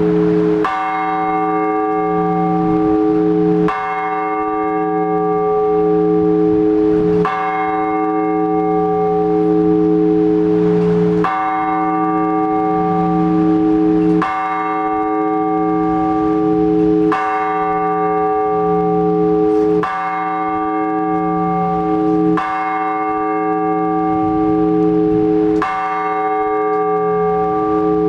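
A single large Orthodox church bell tolled slowly, one stroke about every three seconds, each stroke ringing on into the next. This is the bell calling the faithful to the all-night vigil.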